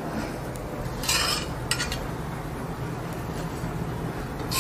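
A spatula scraping against a frying pan as a bread omelette is flipped and turned. There is a short scrape about a second in, a shorter one just after it, and another near the end, over a steady low hum.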